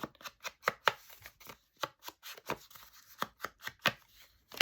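Cardstock being handled on a work surface: an irregular run of sharp paper taps and rustles, about three a second.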